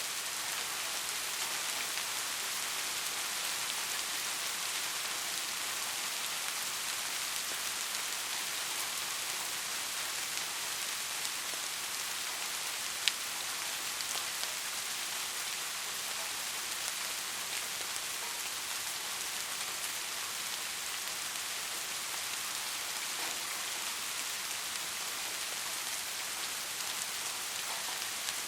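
Steady rain falling, an even dense hiss of drops, with one sharp tick about halfway through.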